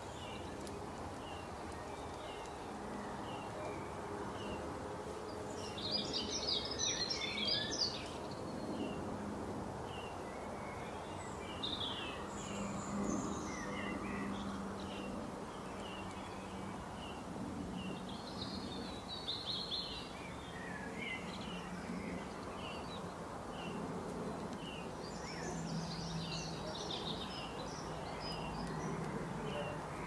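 Wild birds singing: a steady string of short high chirps, one or two a second, broken every five or six seconds by a louder burst of twittering song, over a faint low steady background noise.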